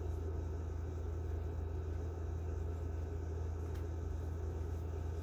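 Steady low hum with a faint hiss: constant background room noise, with no events.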